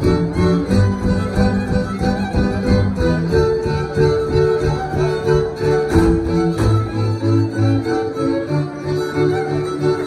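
Polish highlander (Góral) string band playing: fiddles over a bowed bass line, in a steady pulsing rhythm.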